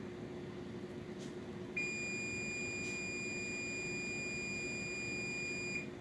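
Oven timer beeper sounding one continuous high beep for about four seconds, starting about two seconds in, over the steady low hum of the running oven.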